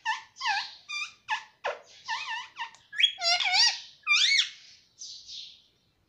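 Indian ringneck parakeet chattering: a rapid string of squeaky, warbling calls whose pitch slides up and down, loudest about three to four and a half seconds in.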